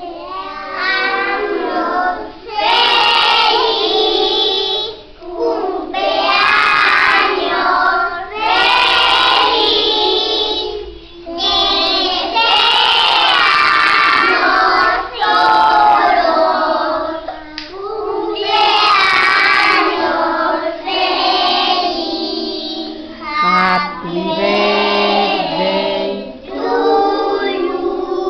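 A group of young children singing a birthday song together, in phrases a few seconds long with short breaks between them.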